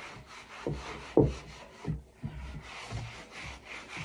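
Soft microfiber cloth rubbing back and forth over a wooden cutting board, buffing excess spoon butter off the freshly conditioned surface, with a few brief bumps.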